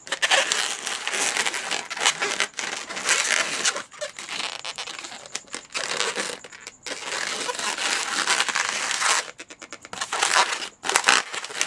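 Qualatex latex modelling balloons rubbing against each other and against the hands as they are twisted and locked into a poodle's neck and legs. The rubbing comes in dense bursts with several short breaks, with a quick run of sharp ticks about ten seconds in.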